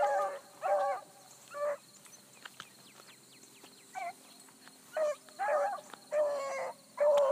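Bluetick coonhounds baying as they run a rabbit's track: a string of short, ringing bawls, broken by a lull of about two seconds midway.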